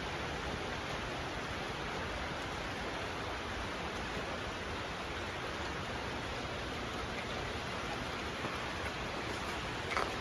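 Steady, even background hiss with no tone or rhythm, and one short click near the end.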